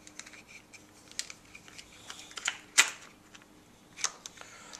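Small hard clicks and taps of RC car drivetrain parts being handled as a short dog bone is lined up and fitted into the central transmission; the loudest click comes about three seconds in.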